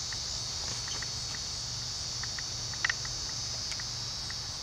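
Steady high-pitched chorus of crickets and other insects, with one short knock about three seconds in.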